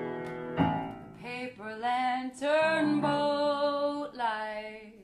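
A woman singing a slow melody with vibrato over a held keyboard chord. A fresh chord is struck just over half a second in, and the voice enters about a second in.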